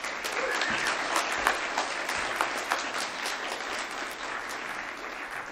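Audience applauding, many hand claps blending into a steady patter that slowly dies down near the end.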